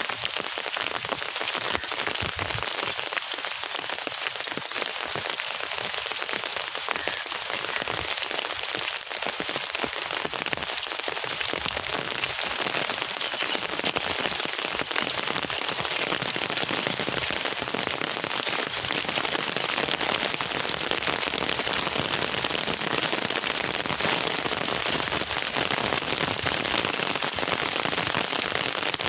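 Steady rain falling: a dense hiss of drops with many small individual drop ticks, growing a little heavier through the second half.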